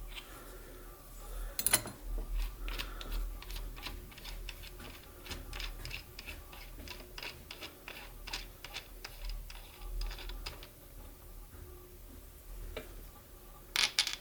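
Irregular light clicks and taps of small hard objects, a few a second, with a louder clatter about two seconds in and a sharp double knock near the end.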